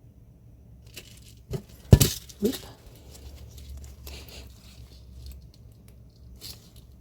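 Small metal jewelry knocking and clattering against a hard tabletop: three quick knocks, the second loudest, as a piece slips from the hand, then faint rustling and clinking of handling.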